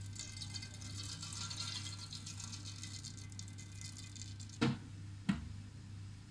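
Mustard seeds and urad dal sizzling with a fine crackle in hot sesame oil. Two short knocks come a little past the middle.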